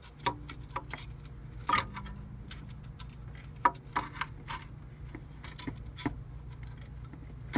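Scattered sharp clicks and knocks, about half a dozen, as a 2002 Nissan Maxima's old front electric engine mount is wrestled loose by hand and knocks against the surrounding parts, over a steady low hum.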